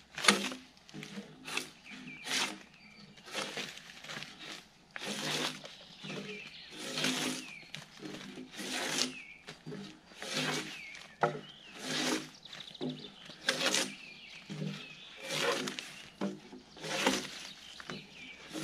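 Gränsfors Bruks drawknife pulled along a log, peeling off the bark in repeated rasping strokes, about one a second.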